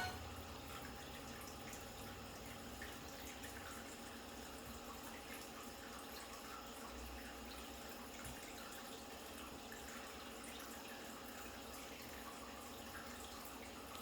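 Faint steady hiss with a low hum and a few light ticks: quiet room tone.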